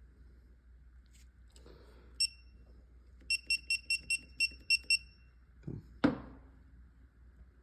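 Digital torque-angle wrench beeping as a bolt is turned through its angle: one short high beep, then a quick run of eight beeps signalling the 90-degree target is reached. A sharp knock follows about six seconds in.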